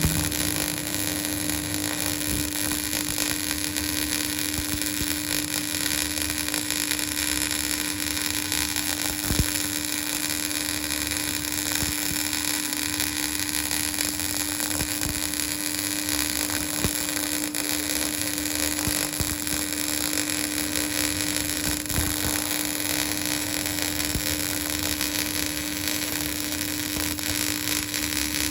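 Electric arc welding on a test plate: a steady hiss with a constant hum running under it and a few sharp clicks.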